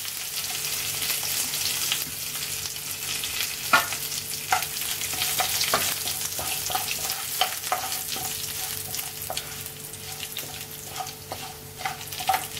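Hot coconut oil sizzling in a ceramic-coated frying pan as mustard seeds, urad and chana dal, curry leaves and a dried red chilli fry for a tempering. A wooden spoon stirs and scrapes the pan, with scattered sharp clicks, the loudest about four seconds in.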